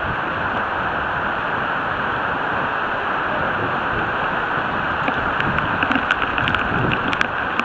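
Steady hiss of heavy rain and water under a bicycle rolling along a flooded street. Scattered sharp ticks join it from about five seconds in.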